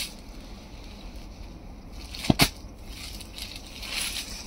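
Quiet background hiss with two short sharp knocks about two seconds in, then a brief rustle of saree fabric being lifted off the sheet near the end.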